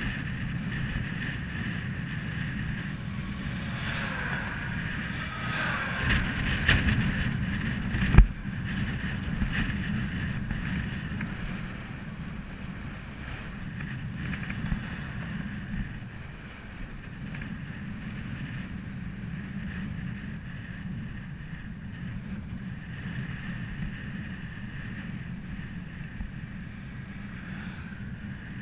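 Wind rushing over the microphone of a bike-mounted camera while cycling on asphalt, a steady noisy rush. About four to seven seconds in it swells louder with a falling whine, and a single sharp knock comes about eight seconds in.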